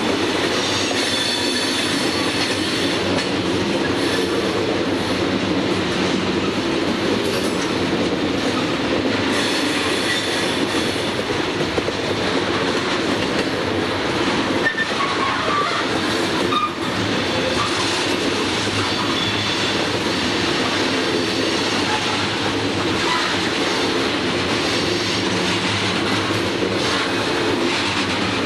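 CSX coal hopper cars rolling past close by on curved track: a steady rumble and rattle of steel wheels on rail, with faint high wheel squeal coming and going.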